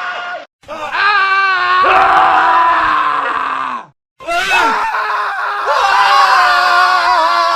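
Men screaming in a montage of separate clips. There is a short cut-off scream, then a long scream with a wavering pitch, then another scream starting just after a brief gap about four seconds in.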